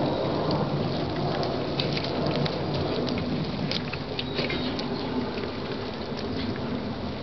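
Airplane passing overhead: a broad, rumbling noise that slowly fades away.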